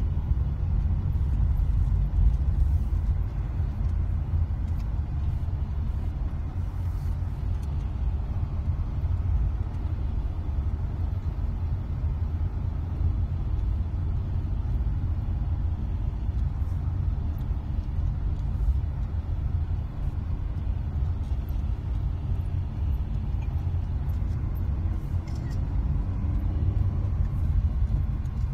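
Steady low rumble of a car driving along an asphalt road: engine and tyre noise.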